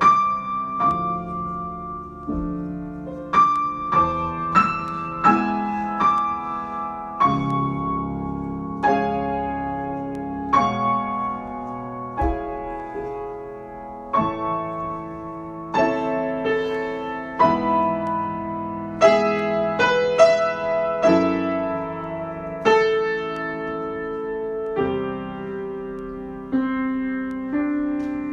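Solo piano improvisation: chords and melody notes struck about once a second, each ringing and fading before the next.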